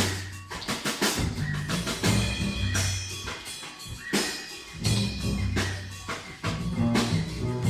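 Instrumental music: a bass line under a steady beat of drum and percussion hits.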